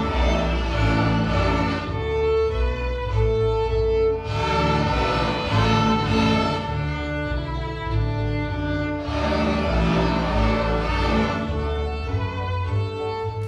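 A children's string ensemble of violins, cellos and double basses playing a piece together, in phrases of held notes that swell and ease off every few seconds.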